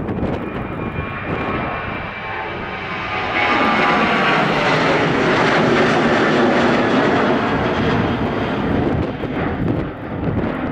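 Boeing 737-800's twin CFM56-7B turbofans at takeoff thrust as the jet climbs out after lift-off. The engine noise swells about three and a half seconds in, with a faint whine of fan tones above it, then eases near the end.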